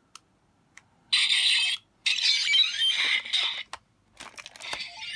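A few faint clicks of a homemade Kamen Rider Revice stamp toy's controls, then the toy's small speaker playing its sound effects: a short thin, hissy burst about a second in and a longer one from about two seconds, with more clicks and sound near the end.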